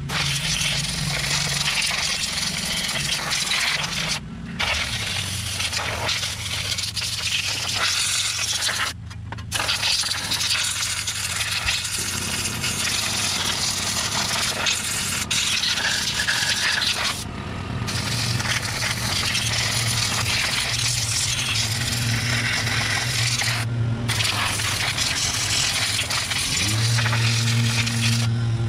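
Compressed air hissing from a blow gun on an air hose in long blasts, stopping briefly about four times, as it blows mouse-nest debris out of the cylinder cooling fins of a Briggs & Stratton 20 hp V-twin. A low steady hum runs underneath and grows louder near the end.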